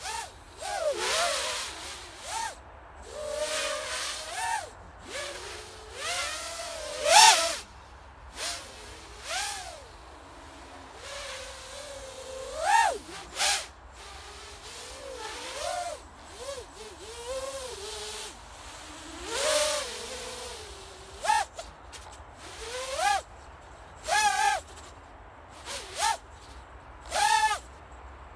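Eachine Tyro99 FPV racing quadcopter's four 2206 2150 kV brushless motors and propellers in flight: repeated whines that swoop up and down in pitch as the throttle is punched and backed off, each with a rush of propeller air, the loudest about seven seconds in.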